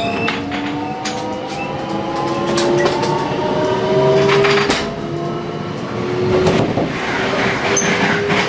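JR West 521 series electric train heard from inside the passenger cabin while under way. The traction motor and inverter whine in several tones that climb slowly as the train picks up speed, over a running rumble, with occasional sharp clacks.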